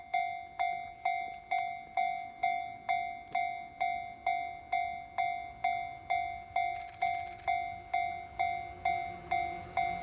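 Level crossing warning bell on an HO-gauge model railway, ringing in even single dings just over twice a second. Faint clicking comes briefly about seven seconds in.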